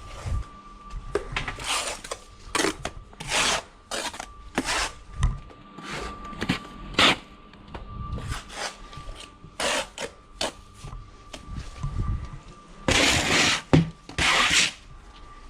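Bricklayer's trowel scraping and spreading mortar on concrete blockwork: a run of short scrapes with a few dull knocks, and two longer scrapes near the end.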